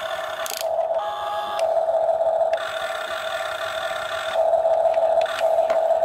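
Electric motors and plastic gearboxes of a Huina remote-control toy excavator whining steadily as its boom and arm move. The whine breaks off briefly and changes its tone several times as different movements start and stop.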